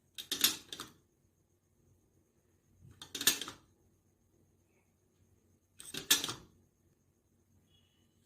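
Three short clattering bursts, about three seconds apart, as flour, salt and pepper are added to a bowl of mashed potatoes.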